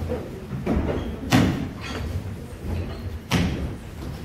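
Percussion on large trash cans: two loud slams about two seconds apart, each with a softer hit shortly before it, over a low rumble.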